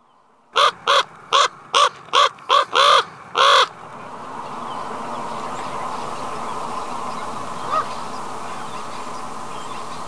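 Common raven calling: a quick series of about eight short, hoarse caws, evenly spaced, over roughly three seconds. After that comes a steady background noise.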